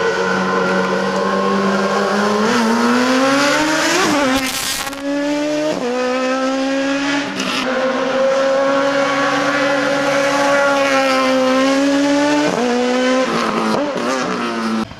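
Race car engine accelerating hard up through the gears, its pitch climbing and then dropping at each of about five upshifts, with a brief crackle at the first shift.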